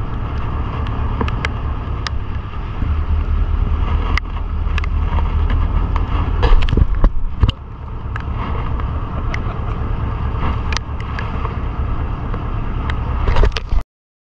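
Small fishing boat under way: a steady low engine and wind rumble on the microphone, with frequent sharp knocks. It cuts off suddenly near the end.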